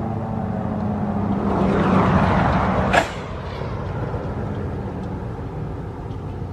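Sentry 15V2T-B outdoor warning siren winding down after its alert cycle, a low tone fading away. A rushing noise swells over it, and a sharp knock comes about three seconds in, after which everything is quieter.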